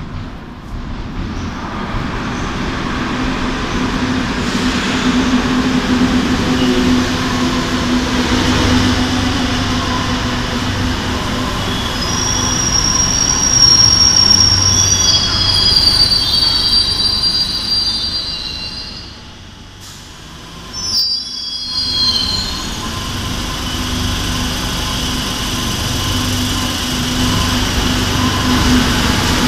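Madrid Metro Serie 2000B electric train pulling into an underground station: wheel rumble on the rails and a steady motor hum build as it comes in. High-pitched wheel and brake squeal starts about halfway through as it slows along the platform. After a brief quieter moment about two-thirds of the way in, with one more short squeal, the rumble and hum build again.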